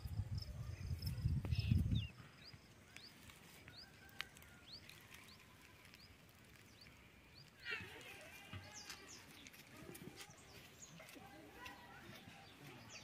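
Small birds chirping in short rising calls, scattered through, with a denser burst of calls about eight seconds in. A low rumble fills the first two seconds and then stops suddenly.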